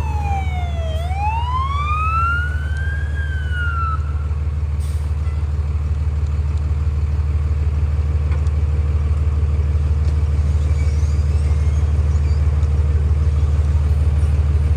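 Emergency vehicle siren wailing, falling and then rising in pitch, stopping about four seconds in. Under it is the steady low drone of the truck moving on the highway.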